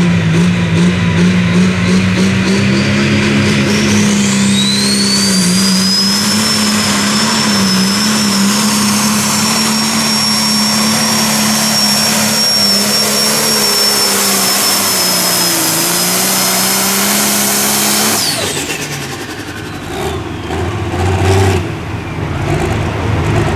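Turbocharged diesel engine of a Case IH Limited Pro Stock pulling tractor running at full throttle while pulling the sled, with a turbo whistle that rises in pitch a few seconds in and then holds high. About eighteen seconds in the throttle is cut: the whistle falls away and the engine drops to a low, uneven idle.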